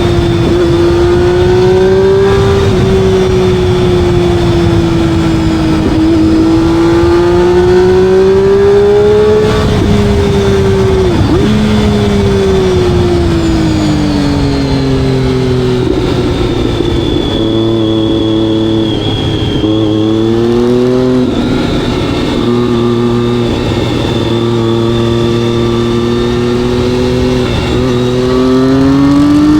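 Motorcycle engine running under way, its pitch climbing and falling as it speeds up and slows down, with a few brief breaks in pitch at gear changes.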